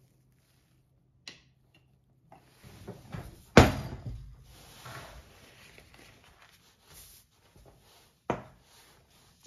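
Kitchen handling sounds: a loud knock about three and a half seconds in, with rustling around it, and near the end a sharp tap as a small glass jar is set down on the countertop.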